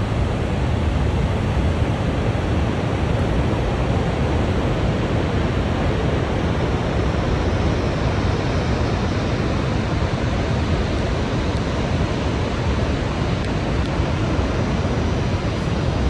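Steady rushing roar of the Iguazu Falls heard from a distance, with wind rumbling on the microphone.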